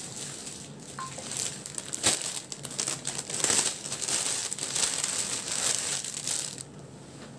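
Crinkling and rustling of a plastic garment packet as a folded blouse is handled and pulled out of it, with many small crackles. It stops near the end.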